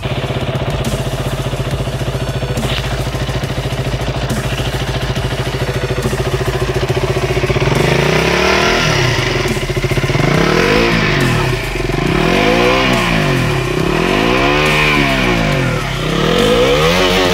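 KTM Duke 200's single-cylinder engine idling steadily, then revved up and let fall back about five times, roughly every two seconds, from about eight seconds in.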